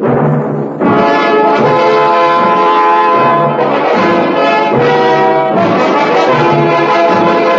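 Radio-drama music bridge played by an orchestra with prominent brass: a run of held chords that change every half second or so, growing fuller about a second in.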